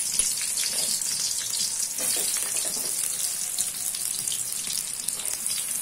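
Sliced onions, freshly added to hot oil in a steel kadhai, sizzling: a steady hiss with faint scattered crackles, easing a little toward the end.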